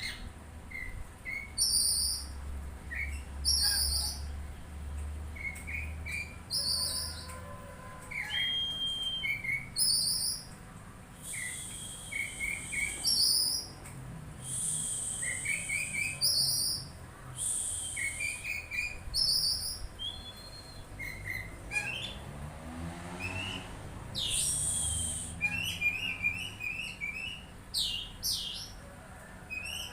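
A songbird singing: short chirps in quick groups repeated about every two seconds, with high trills and rasping phrases between them.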